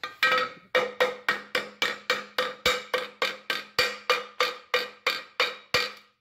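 Hammer striking a steel exhaust pipe section in rapid, evenly spaced blows, about five a second, each clank leaving a short metallic ring.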